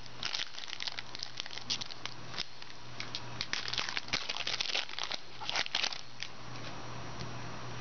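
Foil trading-card pack wrapper crinkling and tearing as it is opened by hand, a run of short sharp crinkles that thins out about six seconds in.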